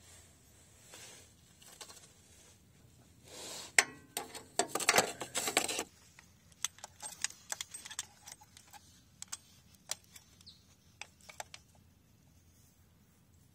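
Small metal hand tools clinking and rattling as they are handled, with a dense jingling burst from about three and a half to six seconds in, then scattered light clicks.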